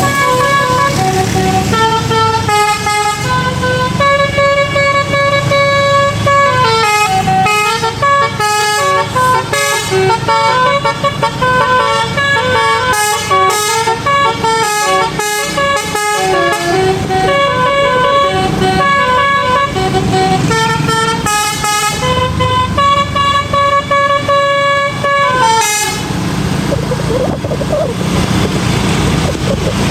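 Indonesian "telolet basuri" musical bus horn playing a stepping melody of several tones at once, over the low rumble of the bus. The horn stops about four seconds before the end, leaving the rumble.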